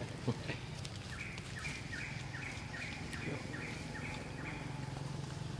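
A bird calling a quick, evenly repeated two-note phrase, a lower note then a higher one, about nine times over some three seconds. Underneath runs a steady low hum, with a couple of sharp clicks near the start.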